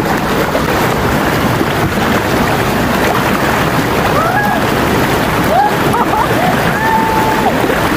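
Fast-flowing river water rushing over rocks, a loud steady rush, with a few faint higher calls over it past the middle.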